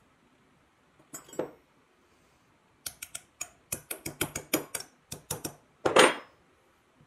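Steel tool and drill-press spindle parts with a ball bearing clinking and knocking together: a short clatter, then a quick run of about a dozen sharp metallic clicks, and a louder ringing clatter near the end.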